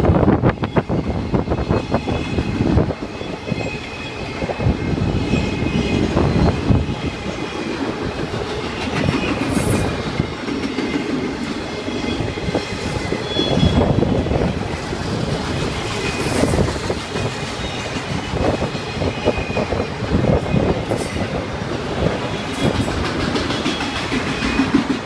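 Enclosed autorack freight cars rolling past at trackside: a steady rumble of steel wheels on rail with irregular clacks over the rail joints, and faint high-pitched squeals now and then.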